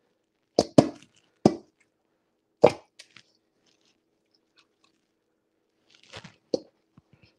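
Kitchenware knocking as a metal bowl with raw Cornish game hens is handled at the sink: four sharp knocks in the first three seconds, then a short cluster of clunks near the end.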